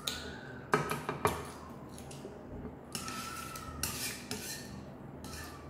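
Wooden chopsticks clicking against a metal frying pan and stirring through saucy noodles: two sharp knocks about a second in, then a longer spell of stirring and scraping in the pan.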